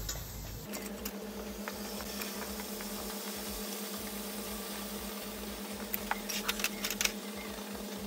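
Water quenching a hot metal casting and its sand mould: a steady hiss of boiling and steam with a low hum under it, and a cluster of sharp crackles and pops near the end.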